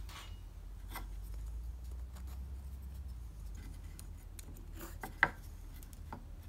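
Hands handling workpieces on a wooden workbench: light rubbing and small taps, with one sharp knock about five seconds in, over a steady low hum.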